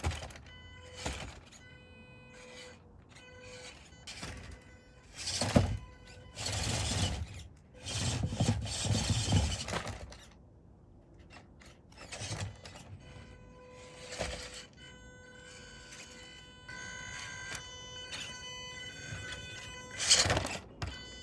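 Small toy RC cars' electric motors whirring in short, stop-start bursts, with plastic knocks as the cars climb over obstacles.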